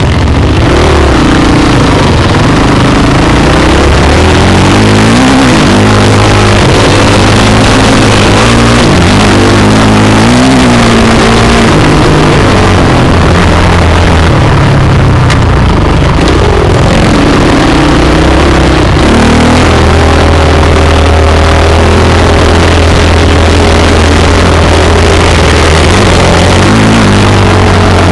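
Dirt bike engine being ridden along a trail, its pitch rising and falling again and again with the throttle, over a steady rushing hiss.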